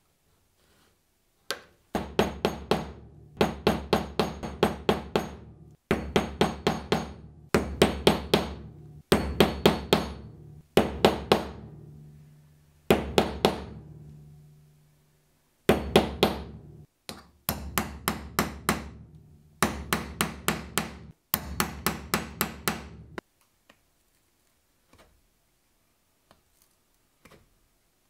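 A mallet striking a metal basketweave stamp to tool a pattern into leather: sharp repeated taps in quick runs of several strikes a second, with short pauses between runs. The tapping stops a few seconds before the end.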